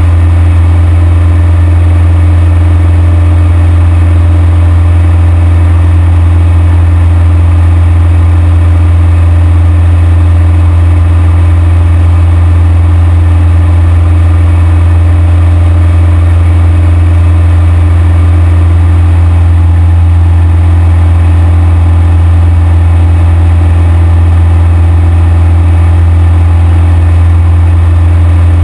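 Cessna 172's piston engine and propeller in flight, a loud steady drone with a strong low hum, heard from inside the cabin.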